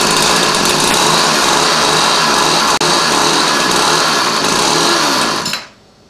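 Gas string trimmer's small engine running steadily at a fast, even buzz, then shut off about five and a half seconds in. It is a hard-starting trimmer whose carburetor has been worn by cold storage, now running.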